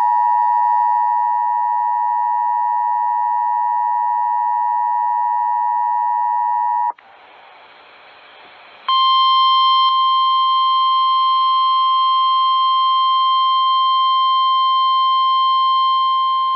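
Emergency Alert System two-tone attention signal, a steady dual-tone alarm, lasting about seven seconds. It cuts off to a couple of seconds of faint hiss, then the single steady NOAA Weather Radio warning alarm tone sounds, slightly higher in pitch, for the rest.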